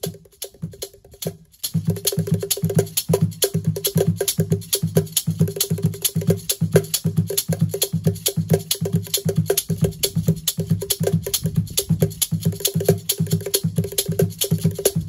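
Cajon beaten by bass drum pedals (DW 9000 and DW 2000) in a steady low thump, about three beats a second, while drumsticks click on a small block mounted on a stand. The groove starts about a second and a half in and runs as an even, busy percussion pattern.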